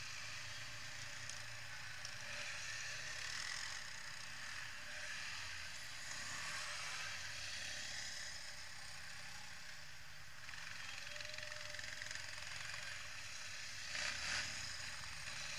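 Quad bike (ATV) engines running as the quads pull away across the grass, with a brief louder stretch near the end as one drives close by.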